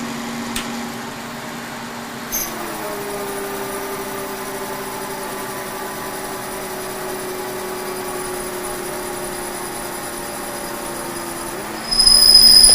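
K&T 2HL milling machine set up as a lathe, taking a heavy turning cut with a carbide insert at a raised feed. A steady machine hum strengthens about two seconds in as the cut proceeds. Near the end a loud, high-pitched squeal starts: the increased feed is more than the setup can handle.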